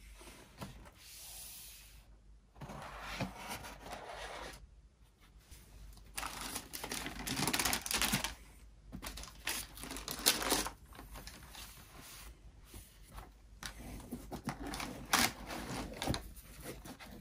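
Cardboard shoebox being opened and its tissue paper rustling and crinkling as it is unfolded and a sneaker is lifted out, in irregular bursts with a few light knocks, loudest about six to eleven seconds in.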